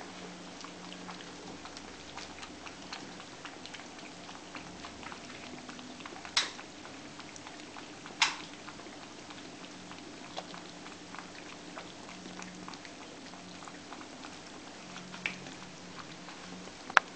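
Kittens eating from a plastic bowl: a steady crackle of small clicks from chewing and lapping. Two louder sharp clicks come about six and eight seconds in.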